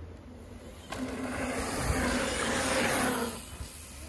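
A mountain bike passing on a dirt trail: rushing tyre and wind noise that swells about a second in, holds for two seconds, then fades.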